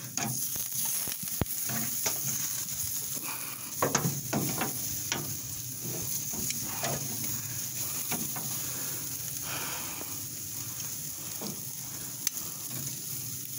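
Steaks, pork ribs and bell peppers sizzling on a barbecue grill grate, a steady hiss with scattered crackles and pops.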